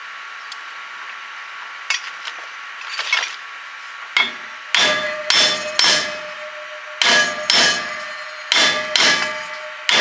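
Hammer blows on steel gearbox parts: a run of about ten sharp strikes, several in quick pairs, each leaving the metal ringing.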